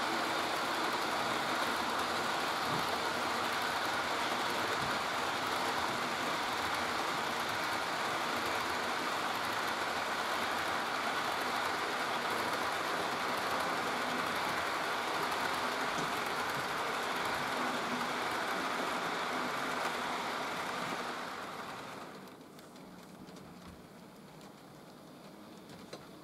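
HO-scale model train rolling past on the layout track: a steady rattling run of metal wheels on rail. It fades and drops away about 21 seconds in.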